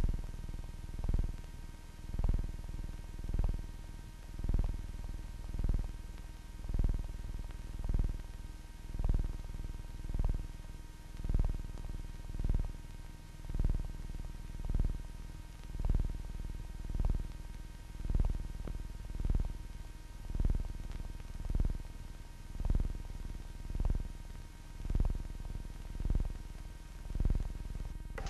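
Film background score: a slow, steady low drum beat, about one stroke a second, over a faint steady hum.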